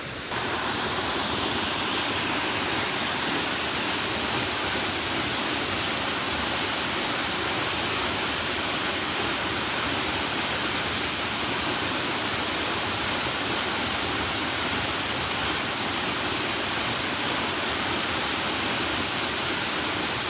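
A large, powerful waterfall in high rainy-season flow: a steady, even rush of falling water that steps up slightly just after the start.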